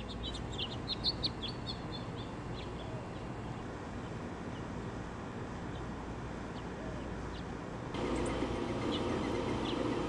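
Small birds chirping, a quick flurry of short high chirps in the first two seconds and a few scattered ones after, over a steady background hum. About eight seconds in, the steady hum turns louder and fuller.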